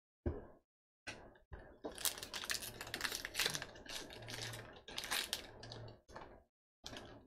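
Wrapper of a Topps Allen & Ginter baseball card pack being torn open and crinkled by hand: a dense run of crackling rustles starting about a second in and lasting about five seconds, with a couple of shorter rustles near the end.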